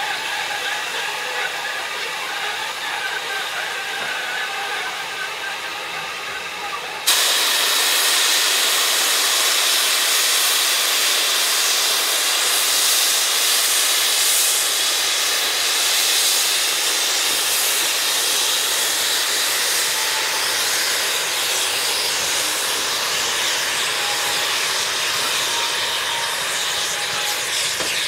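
Steam locomotives of the BR Standard Class 2MT and WD 8F types venting steam: a loud, steady hiss that starts suddenly about seven seconds in and carries on unbroken.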